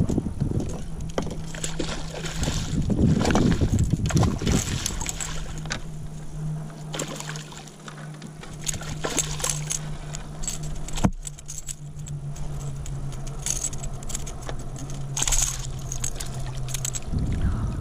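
Water splashing and slapping as a hooked fish thrashes at the surface beside a kayak while it is netted, with low rumbles early on and a steady low hum underneath.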